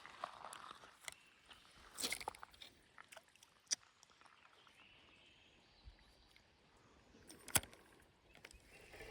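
A few sharp, separate clicks and knocks, the loudest near the end, over a faint steady hiss.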